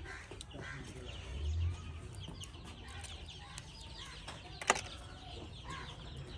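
Chickens clucking and small birds chirping throughout, with a brief low rumble about one and a half seconds in and a single sharp click a little before the end.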